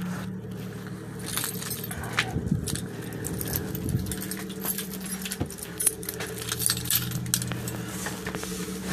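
A bunch of keys jangling and clicking while a house door is unlocked, over a steady low hum.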